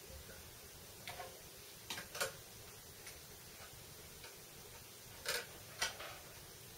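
Quiet, irregular light metal clicks and taps from handling a CNC ball screw, its mounts and a caliper on a milling machine saddle while squaring the screw up, with a few louder clicks about two seconds in and near the middle to end.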